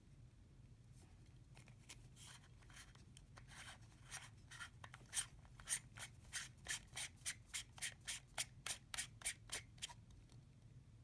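Metal mesh grille head of a Sennheiser SKM 5000 handheld radio mic being screwed onto the mic body by hand: faint rubbing, then a run of short clicks about three a second as it is twisted on, stopping about a second before the end.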